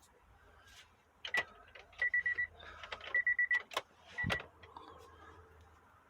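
Short, high electronic beeps in two quick runs of about five, with a single beep before and after, plus a few clicks and a thump about four seconds in, with the engine switched off.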